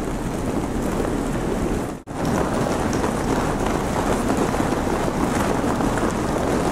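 Many quad roller skates rolling on a hard sport-court floor, giving a steady, even rumble of wheels. The sound cuts out briefly about two seconds in.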